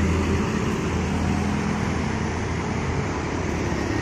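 Diesel engine of an intercity coach bus pulling away, a steady low drone that slowly fades as it drives off.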